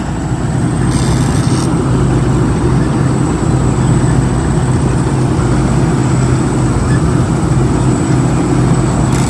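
Thai-built Thai Seng rice combine harvester running steadily while harvesting, a constant engine hum under a noisy mechanical clatter, with a brief high hiss about a second in.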